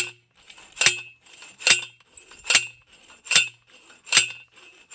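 Manual post driver slamming down onto a steel T-post, driving it into the ground: about six ringing metal clangs, evenly spaced a little faster than once a second.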